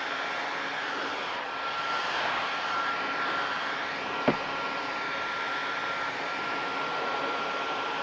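Electric heat gun blowing steadily, a rush of air with a constant high whine from its fan motor, as it shrinks heat-shrink tubing onto a copper cable lug. A single sharp knock a little after four seconds in.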